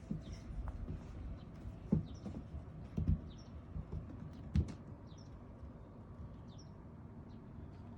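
Kittens playing, with soft thumps and pattering from their paws and bodies on the floor. Three louder thumps fall in the first half, then it settles. Faint, high bird chirps repeat every second or so in the background.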